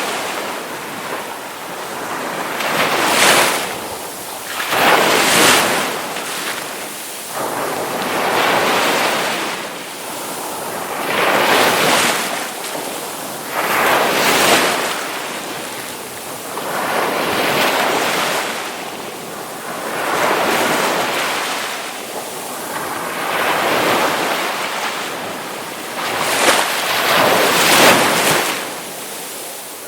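Ocean waves breaking and washing up, one surge of surf every two to three seconds, each swelling and then fading back.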